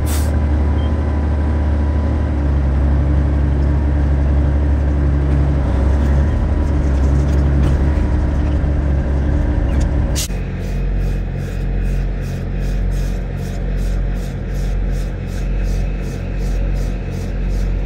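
Semi truck's diesel engine running with a deep, steady rumble. About ten seconds in a click is heard, and the engine settles to a quieter idle that rises and falls in loudness a little more than once a second.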